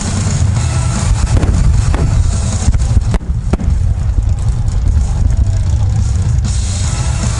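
A rapid barrage of aerial firework shells bursting: a continuous deep rumble of overlapping booms with sharp cracks over it.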